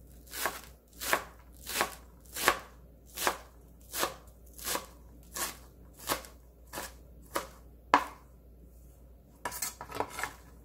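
Chef's knife chopping green onions on a plastic cutting board: steady, even knocks of the blade meeting the board, about one every 0.7 seconds, a dozen in all. Near the end comes a short cluster of quicker knocks and scrapes.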